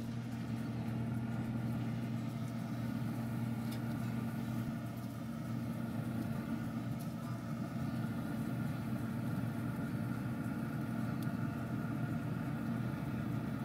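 Steady electric hum of a Camp Chef Woodwind Pro pellet grill's fan running, with a few faint clicks as skewers are set on the grate.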